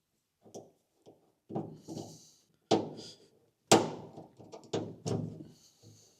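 Irregular knocks and clunks of metal parts being handled while the panel light fittings go onto a Willys MB jeep's steel dash. There are three sharper knocks in the middle, the loudest near the halfway point, and brief scraping between them.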